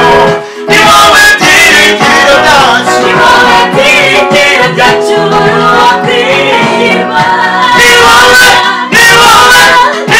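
A small mixed choir of men and women singing a Kinyarwanda gospel song together in harmony, with short breaks in the singing about half a second in and again near nine seconds.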